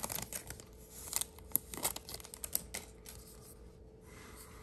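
Stack of paper football trading cards being handled and flipped through: light rustling with a few short clicks in the first three seconds.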